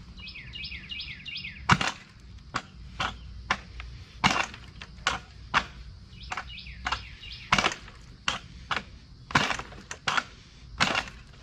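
Honda Ruckus scooter's kick-start lever being kicked over and over, a sharp clack about twice a second with the engine not catching. The kick-start is sticking, which the owner suspects is rubber shed by the drive belt gumming up its gears.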